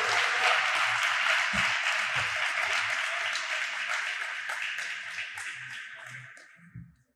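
Audience applauding, fading away over the last two seconds or so and stopping just before the end.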